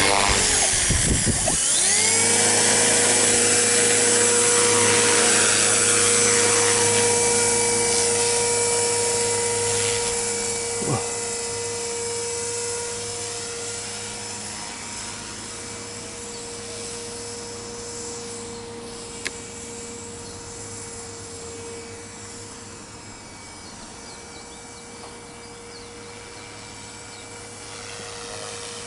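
KDS 450Q electric RC helicopter spooling up with a rising whine over the first two seconds, then running at flight speed with a steady whine of motor and rotor blades. The sound grows gradually fainter from about halfway through, with one brief dip in pitch near the middle and a single short click later on.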